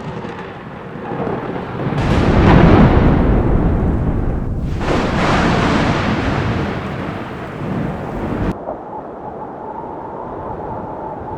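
Thunder rumbling in two long rolls, the second swelling about five seconds in, then cutting off abruptly: a thunder sound effect. A softer, steadier rumble with a faint hum follows.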